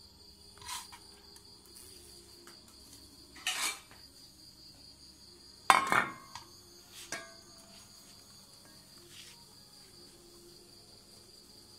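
Crickets chirring steadily on one high note. Over it come a few short clinks and knocks of an aluminium pot and an enamel plate as charred grilled pods are handled and peeled, the loudest a sharp clatter about six seconds in.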